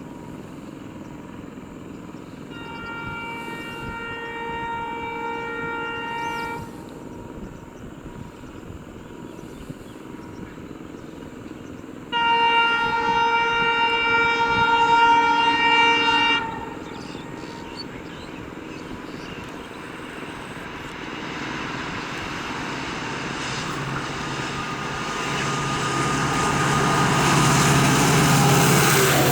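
Diesel locomotive's air horn sounding two long blasts, each about four seconds, the second louder. After that the rumble of the approaching train grows steadily, with a low engine drone, and is loudest near the end.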